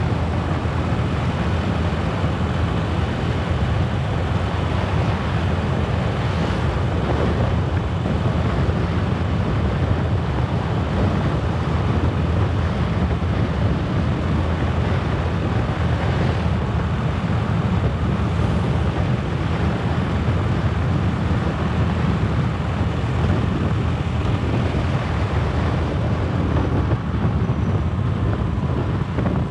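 Steady wind buffeting on the microphone of a camera riding on a moving motor scooter, with the scooter's engine and road noise underneath.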